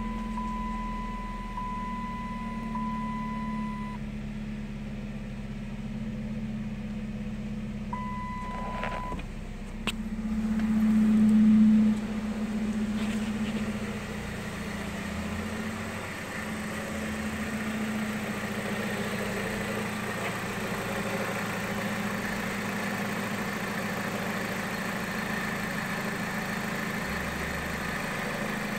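2008 Dodge Caliber's 2.4-litre four-cylinder engine idling steadily at about 1,000 rpm. A steady high warning chime sounds for the first four seconds and again for about a second after eight seconds. A sharp click comes about ten seconds in, then the engine sound swells for two seconds and drops back.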